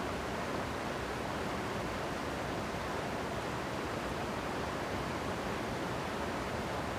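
Mountain river flowing steadily: an even, unbroken wash of water noise.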